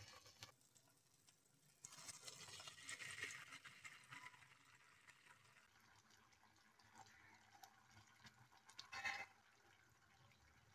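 Faint sound of thick sauces being poured into a frying pan of garlic and oil. About nine seconds in there is a short, louder burst as soy sauce goes in.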